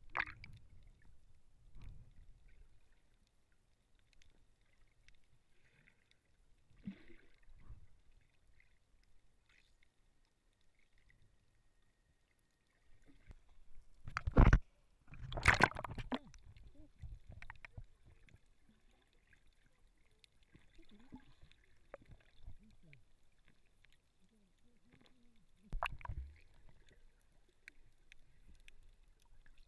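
Muffled water noise on a waterproof camera held under the surface, with two loud splashes about 14 and 15 seconds in as it breaks the surface, and a few quieter splashes and knocks elsewhere.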